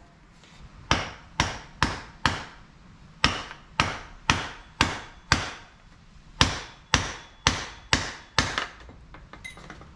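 A half-inch extension bar set in a VW T5 armrest hinge piece, knocked repeatedly against a concrete floor to drive the old broken piece out: a series of sharp knocks, about two a second, with a short break around the middle.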